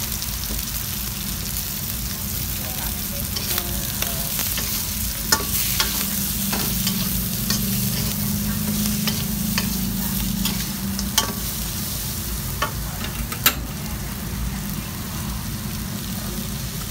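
Shrimp and flowering chives sizzling in a steel wok while a metal spatula stirs and scrapes them, with sharp clicks of the spatula against the wok every few seconds, the loudest about thirteen seconds in.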